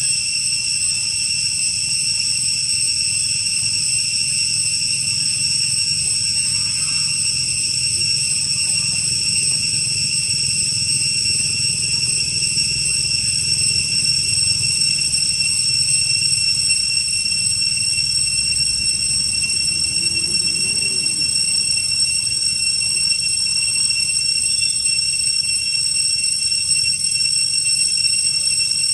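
Steady, high-pitched insect drone of the kind cicadas make, holding one unchanging whine with no breaks, over a low rumble.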